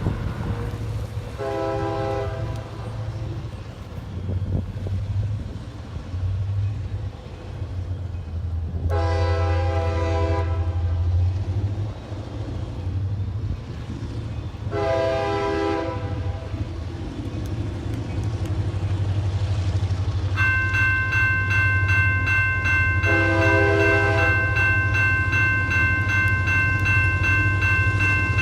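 Diesel locomotive horn sounding four blasts (short, long, short, long) over the steady low rumble of the train. A bell starts ringing rapidly about two-thirds of the way in and keeps going.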